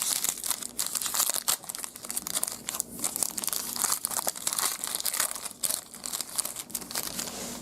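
A trading-card pack wrapper being torn open and crinkled by hand, with a dense run of crackling and crumpling.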